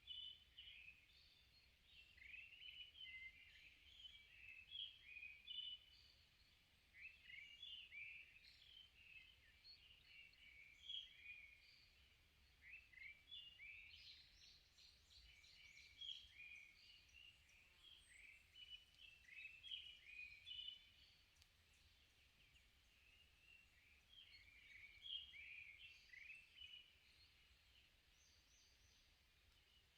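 Faint songbird chorus in a forest: several birds chirping and singing short, quick phrases, in bouts with brief lulls.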